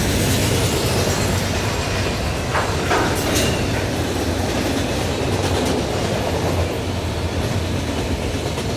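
Freight train cars rolling past at speed, a steady rumble with wheels clicking over rail joints, and a few sharper clanks about three seconds in.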